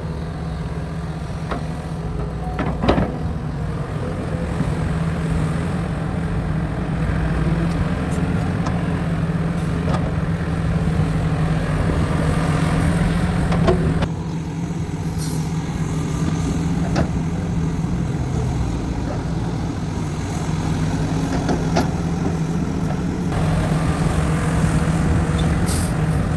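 Heavy diesel construction machinery running with a steady low drone, with a few sharp metallic clanks.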